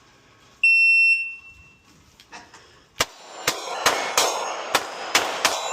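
A shot timer's electronic start beep, one loud steady tone lasting about half a second, then about two seconds later a fast string of gunshots, roughly two to three a second, fired at a steel plate rack.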